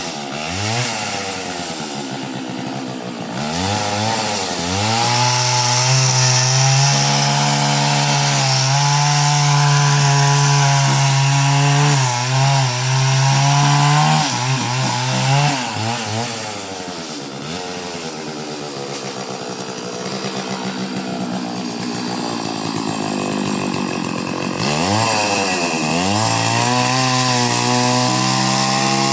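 Chainsaw cutting through a coconut: the engine revs up about four seconds in and holds at high speed for about ten seconds, drops back to a low idle, then revs up again near the end.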